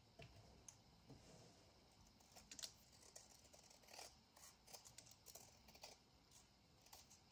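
Near silence broken by faint, scattered snips and clicks of small scissors trimming a paper strip, with light paper handling.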